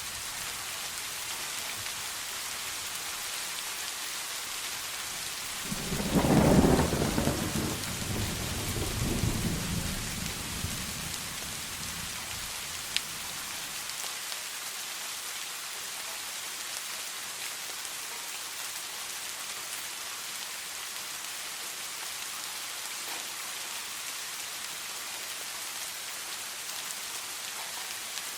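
Steady heavy rain falling, with a thunderclap about six seconds in that rumbles away over the next few seconds.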